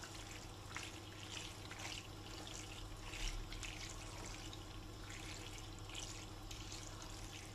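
Spatula stirring thick, creamy macaroni and cheese in a pan: faint, wet squelching and scraping strokes, coming at an uneven pace, over a steady low hum.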